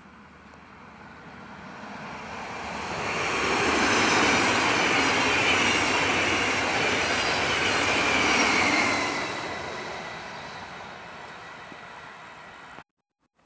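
NS yellow-and-blue double-deck electric passenger train going by: the rush of the wheels on the rails swells over a few seconds to a loud peak, with a high whine that slides slightly down in pitch. The sound then fades as the train moves away and cuts off suddenly near the end.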